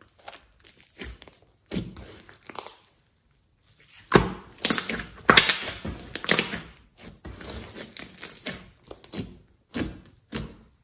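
Hands folding, pressing and kneading a thick slime, making irregular sticky clicks and squelches as the slime is squeezed and pulled apart. The sounds come fastest and loudest in a stretch of rapid pressing in the middle.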